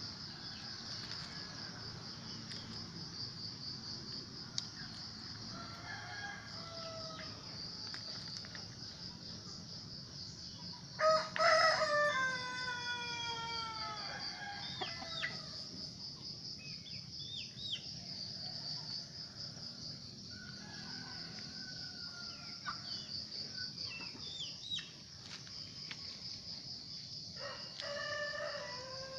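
A rooster crows loudly about eleven seconds in: one long call of several falling notes lasting about three seconds. Shorter calls come before and after it, and another crow starts near the end. A steady, pulsing high chirr of insects sounds underneath.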